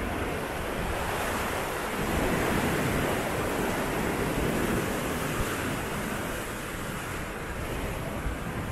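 Steady rush of sea wash and wind, with wind buffeting the microphone. It swells a couple of seconds in and eases off near the end.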